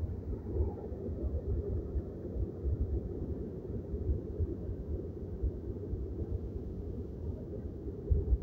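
Low, uneven rumble of a car driving along a rain-soaked highway, with wind buffeting the microphone in gusts.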